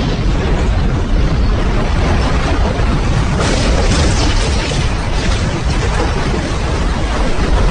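Wind buffeting the microphone over the rush of rough open-ocean waves, with a louder wash of breaking water about three and a half seconds in that lasts a couple of seconds.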